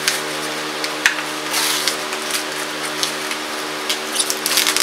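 Paper packaging rustling and crinkling in short scratchy bursts as a new Champion spark plug is unwrapped, with a quicker flurry near the end, over a steady low hum.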